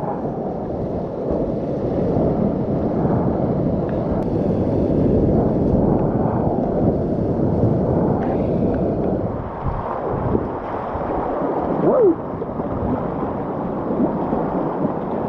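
Whitewater rapid rushing and churning around a kayak, a steady dense wash of moving water.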